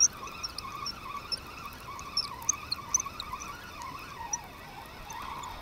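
Spinning fishing reel being cranked to bring a feeder rig in for a recast: a steady whirring whose pitch wavers with the cranking speed. Short high chirps are scattered through it.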